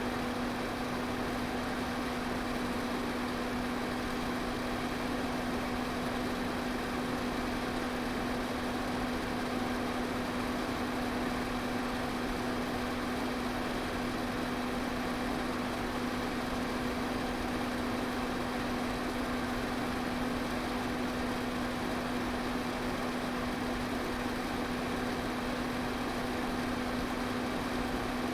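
Electric fan running steadily: an even rush of moving air over a constant low motor hum.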